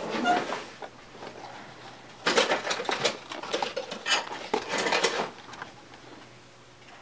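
Knives and leather sheaths being handled: a run of sharp clicks and light scrapes between about two and five seconds in, as a wood-handled blade is worked into and around its sheath.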